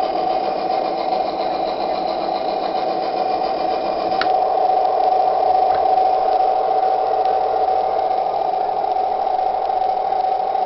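Radio-controlled model tank's electric drive motors and gearboxes whining steadily as it is driven, with a short tick about four seconds in.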